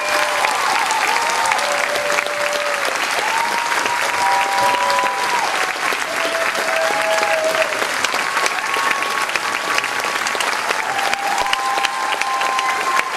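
An auditorium audience applauding steadily.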